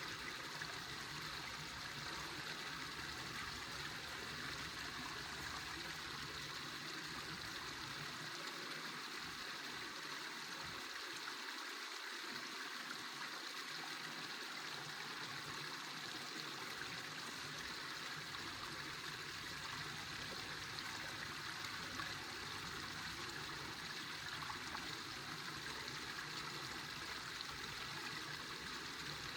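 River water running steadily: a constant, even rush of flowing water.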